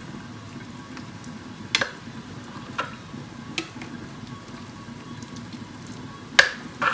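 A utensil knocking against a pan four or five times while food is mixed in it, two knocks close together near the end, over a steady hiss.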